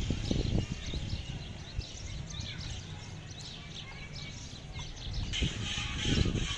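Many small birds chirping and twittering, over low, irregular rustling and knocking close by. The sound changes abruptly near the end, with louder chirping and more knocks.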